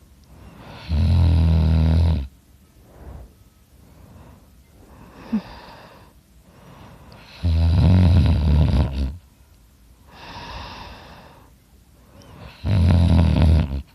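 A person snoring loudly in sleep: three long, low snores about five to six seconds apart, each lasting over a second, with quieter breathing between them.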